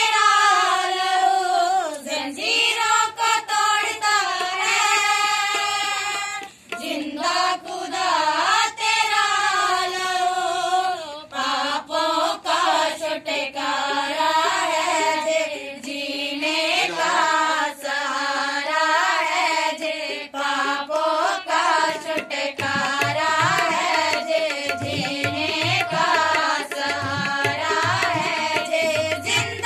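A group of women singing a Hindi Christian worship song together. Low drum beats join in about two-thirds of the way through.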